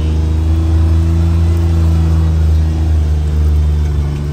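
A motor vehicle's engine running steadily with a deep, even hum, swelling slightly through the middle and easing off near the end.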